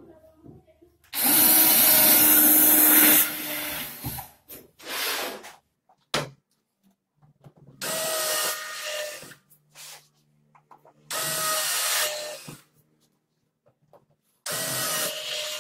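Cordless drill with a countersink bit boring countersunk screw holes into 18 mm melamine strips, in several separate whining bursts. The first burst, about a second in, is the longest and loudest; four shorter ones follow, a few seconds apart.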